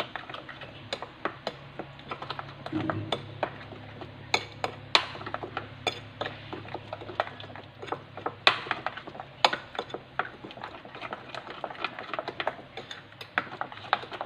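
Utensil clinking and knocking irregularly against a dish while a sauce or topping is stirred and spread.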